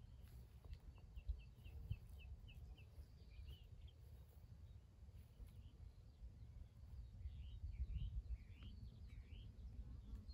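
Faint songbird calls: a quick run of short chirps, then a few sweeping notes near the end, over a low rumble.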